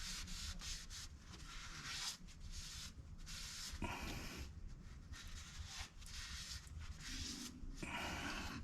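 Soft rubbing and scraping of an oil drain plug with a new crush washer being turned by hand into the oil pan, in short spells with brief pauses.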